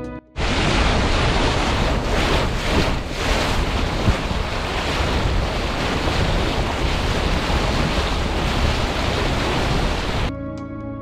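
Bow wave of a Sealine F43 motor yacht under way: a steady loud rush of water spraying and churning along the hull, with wind buffeting the microphone. It starts suddenly just after the start, has one sharp knock about four seconds in, and cuts off near the end.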